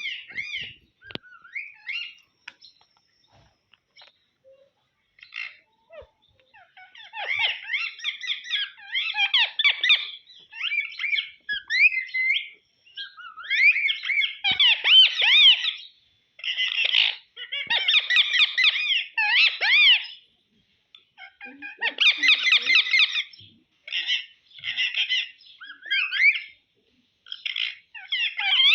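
Indian ring-necked parakeet chattering: high-pitched, squeaky, gliding calls in runs of one to three seconds, with short pauses between.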